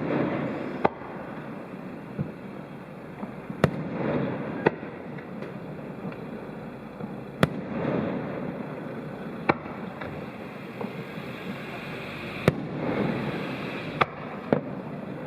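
Fireworks display: aerial shells burst with a sharp bang every two or three seconds, with a few smaller pops between. Several bangs are followed by a longer rumbling swell that lasts about a second.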